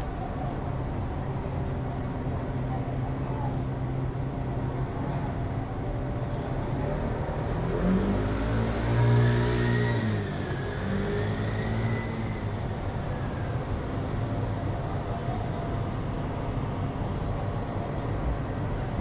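City street traffic with a steady low engine hum; about eight seconds in, a vehicle accelerates past, its engine pitch rising and then falling over a few seconds.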